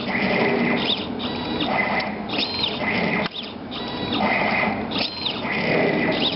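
Drive motors of a belt-driven CNC plasma table whining as the gantry moves a pen through short circle and travel moves, the pitch rising and falling with each move about once a second, with a brief pause about three seconds in.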